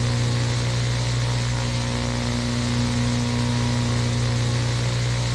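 Steady low electronic hum with a higher overtone, layered over constant static hiss: a droning glitch 'corruption' sound effect that holds unchanged throughout.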